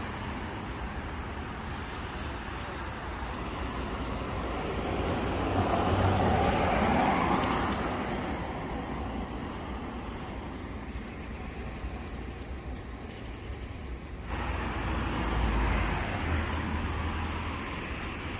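Road traffic passing, a steady rush of tyres and engines that swells as a vehicle goes by near the middle and again later on.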